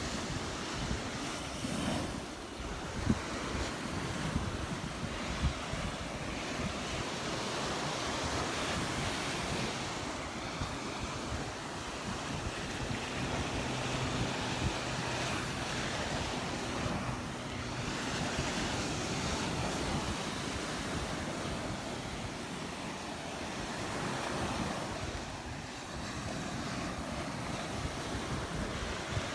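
Surf breaking and washing up the beach, rising and falling in swells every few seconds, with wind buffeting the microphone. A faint low hum is heard in the middle.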